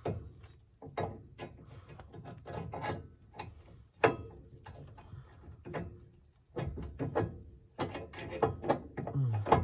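Irregular metallic clanks and knocks of suspension parts and hand tools being worked into place on a car's rear suspension, a strut rod and shock mounting bolt. One sharp knock about four seconds in is the loudest.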